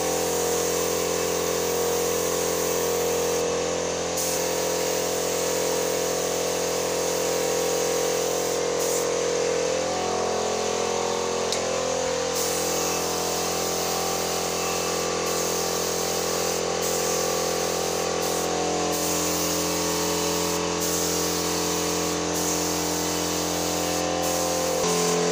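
Compressed-air paint spray gun hissing steadily as it sprays, over a continuous machine hum that shifts slightly in pitch near the end.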